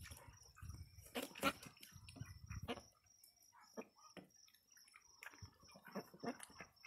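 Domestic ducks splashing and dabbling in a shallow plastic kiddie pool: scattered small splashes and water-flicking sounds. Wind rumbles on the microphone for the first few seconds, over a faint, rapid high chirping.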